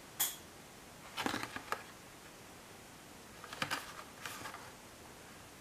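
Faint clicks and crinkles of a clear plastic blister pack on a cardboard card being handled and turned in the fingers, in a few short clusters.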